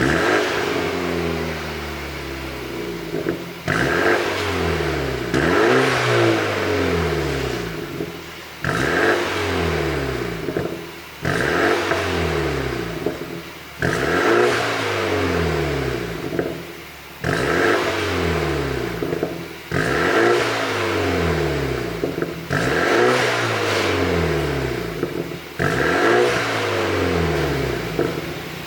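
BMW 428i's turbocharged 2.0-litre four-cylinder engine revved in short blips about ten times. After each sudden rise the revs fall away with exhaust crackles and pops on the overrun, produced by a pop-and-crackle ECU tune.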